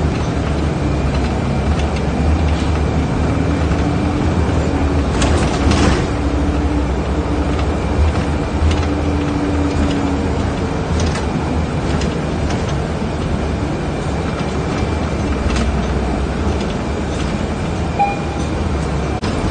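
Steady low rumble of a vehicle in motion, with a few scattered clicks and rattles over it.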